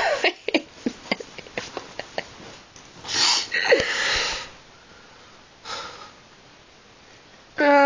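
Sniffs and breathy exhales close to the phone's microphone, with scattered small clicks. The longest breath comes about three seconds in. Near the end, a loud, long whine begins and slowly falls in pitch.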